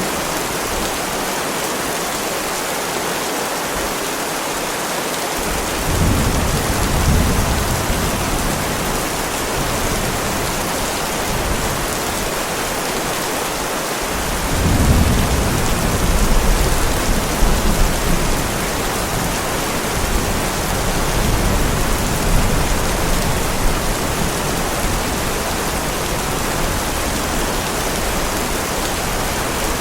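Heavy rain hissing steadily, with low rolling thunder swelling up about six seconds in and again around fifteen seconds in, the second roll lasting several seconds.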